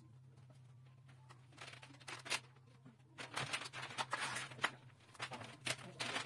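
Light clicks, knocks and rustling from handling the aluminum closet's sliding glass door panels as they are fitted and aligned, sparse at first and then a busier clatter from about three seconds in, over a low steady hum.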